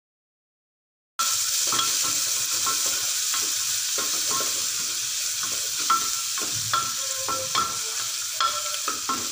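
Chopped onion, garlic and green chilli sizzling in hot oil in an aluminium pressure cooker as they are sautéed over a high flame, with a spatula scraping and knocking against the pot while stirring. The sound starts abruptly about a second in: a steady high hiss with irregular knocks.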